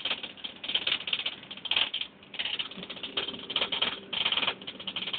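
Irregular rattling and clattering in short bursts inside a moving bus, as its body and fittings shake over the road.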